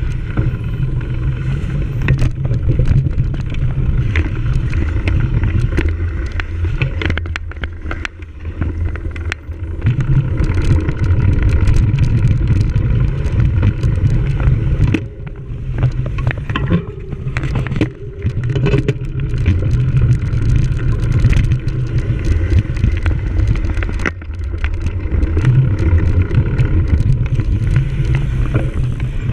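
Wind rushing over the microphone of a camera riding with a cyclocross bike at race pace, with frequent rattles and knocks as the bike goes over rough ground.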